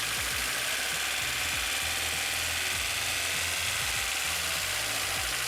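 Vauxhall Corsa's 1.2-litre Z12XE four-cylinder petrol engine running steadily at idle.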